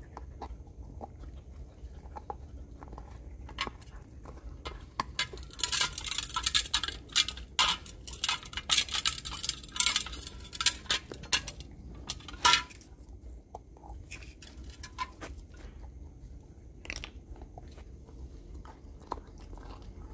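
A dog gnawing a hard raw pork bone held between its paws: crunching and sharp cracks of teeth on bone, coming thick and fast in the middle and then as scattered single crunches near the end.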